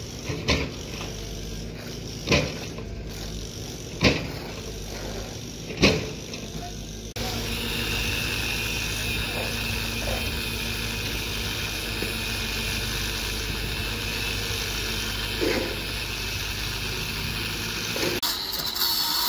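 Four sharp knocks about two seconds apart, then a handheld electric angle grinder running steadily with an even high whine.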